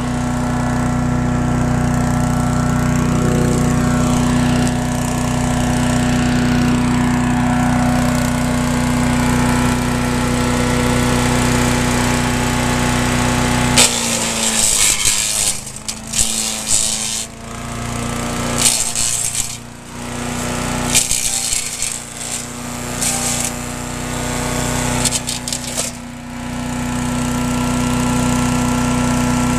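Gas chipper-shredder's Briggs & Stratton engine running steadily. About 14 seconds in, branches are fed into the chipper chute and it chews through them in loud, irregular bursts for about 13 seconds, the engine's pitch dropping a little under the load, then it settles back to steady running.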